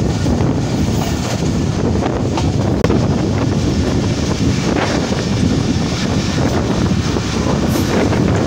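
Wind buffeting a microphone held out of a moving passenger train's window, over the steady rumble of the train running on the rails.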